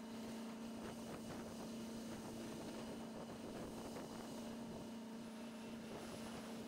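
A faint, steady hum under a light background hiss, with a few faint clicks.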